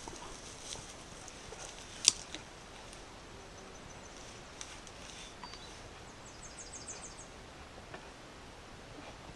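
Outdoor ambience: a steady faint hiss with scattered small clicks, a sharp click about two seconds in, and a quick run of high chirps a little past the middle.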